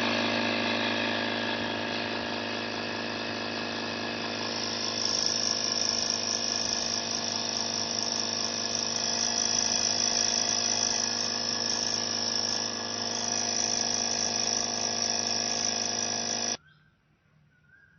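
Oshotto 2-in-1 car vacuum cleaner and tyre inflator running steadily with a motor hum and hiss, then switched off, cutting out suddenly about 16 seconds in.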